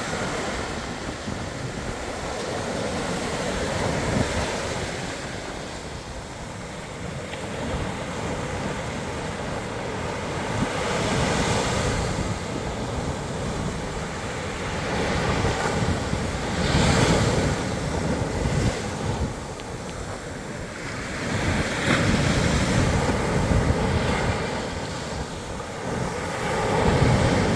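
Ocean surf breaking on a beach: a continuous wash of waves that swells and falls back every few seconds, with several louder breakers from the middle on and one near the end.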